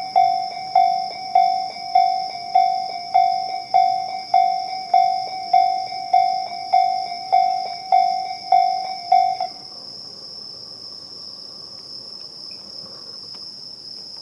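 Japanese railway level-crossing alarm, the slow-tempo Tobu 'sound C' electronic bell, dinging about one and a half to two times a second, then cutting off suddenly about nine and a half seconds in as the crossing clears. Insects keep up a steady high chirring throughout.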